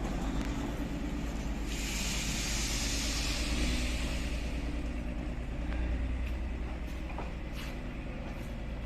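A vehicle's steady low rumble, with a loud hiss that starts sharply about two seconds in and fades away over a few seconds, then a few sharp clicks.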